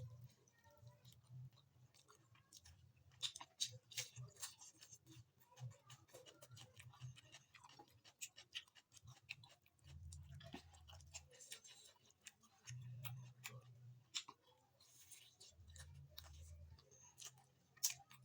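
Faint, close-miked chewing: wet mouth clicks and smacks of someone eating rice and chicken curry, with a few stretches of low rumble.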